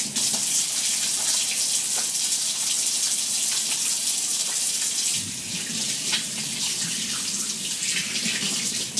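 Kitchen tap running into the sink while hands are washed under the stream with new hand soap. About five seconds in the splashing turns fuller and lower.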